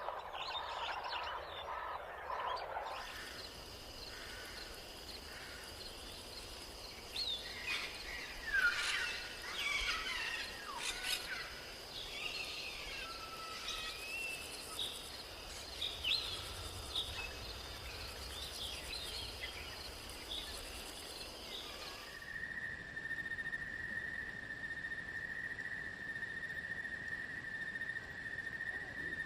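Rainforest ambience: birds chirping and whistling over a steady high insect drone. About two-thirds of the way through, the sound changes abruptly to a steady, lower-pitched insect trill.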